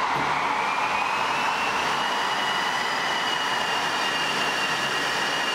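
E653 series electric train running through an underground tunnel station at about 85 km/h: a loud, steady rushing roar of the train and the air it drives through the tunnel, with a thin whistling tone that rises over the first two seconds and then holds.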